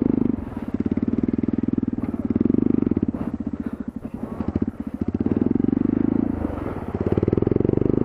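Dirt bike engine running at low speed on a rough trail, its throttle opened and eased off several times, so the steady pulsing rises and falls in level.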